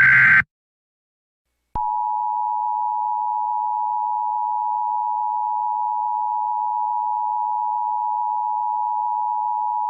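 The Emergency Alert System attention signal: a steady two-tone alert tone (853 and 960 Hz together) starting about two seconds in and holding unbroken. Before it, the last SAME header data burst cuts off half a second in, followed by a short silence.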